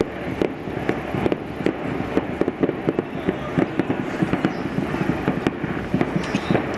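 Fireworks going off in a rapid string of sharp bangs and pops, several a second, coming thicker about halfway through.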